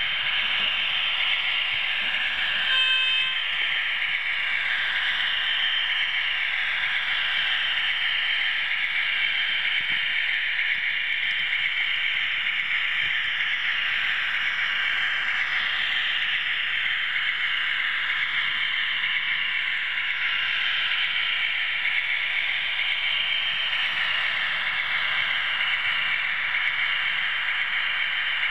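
OO gauge model train running along the track, a steady high whirr of its wheels and motor picked up by a camera riding on the train. A short pitched beep sounds about three seconds in.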